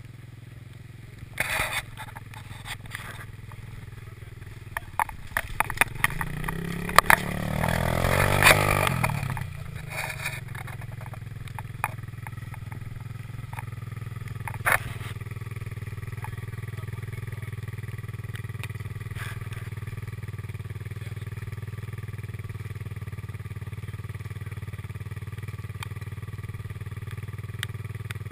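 ATV engine revved up for a few seconds near the middle, its pitch rising and then falling, then settling into a steady idle. A few sharp knocks are heard along the way.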